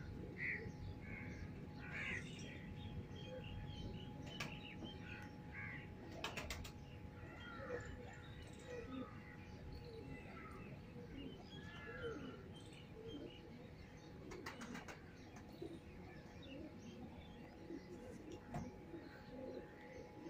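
Faint chorus of bird calls: many short chirps and calls from several birds, scattered throughout, over a low steady rumble and a faint hum. A few brief clicks come about four, six and a half, fourteen and a half and eighteen and a half seconds in.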